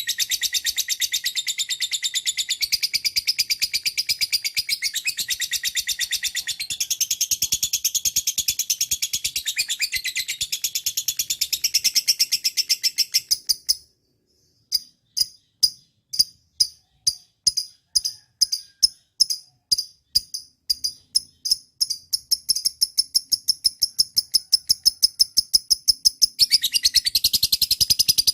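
Lovebird chattering in a rapid, continuous run of high chirps, about ten a second. It breaks off about 14 seconds in. After a short silence it resumes as spaced chirps about two a second, then quickens back into fast chatter for the last few seconds.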